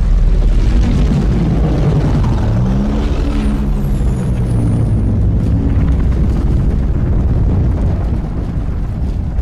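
Loud, steady, deep rumble with an engine-like tone rising and falling through the middle: a heavy vehicle sound effect.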